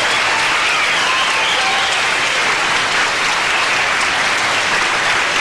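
Audience applauding and cheering after a song ends, a steady wash of clapping with a few high cheers rising and falling in the first couple of seconds.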